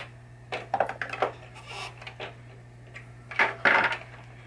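Small metal parts clicking and clattering as nuts and hardware are taken off a pinball playfield by hand: several quick light clicks in the first second or so, then a louder pair of clacks about three and a half seconds in.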